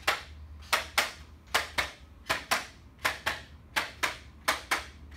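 Handheld chiropractic adjusting instrument tapping the neck, giving sharp clicks in pairs, about one pair every three-quarters of a second, about seven pairs in all.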